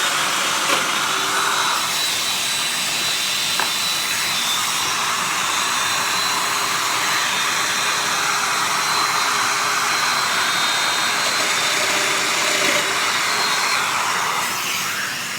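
Festool Domino joiner running steadily with a vacuum-like whir, plunging mortises into the ends of a mitred frame piece held in a jig. The noise fades near the end as the machine winds down.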